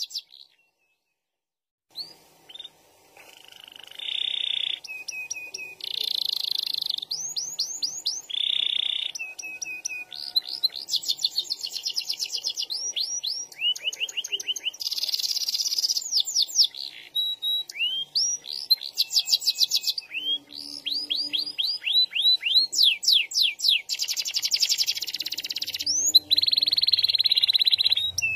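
Orange domestic canary singing, starting after about two seconds of silence: a long, varied song of fast repeated rising whistles, long rolling trills and sustained buzzy notes.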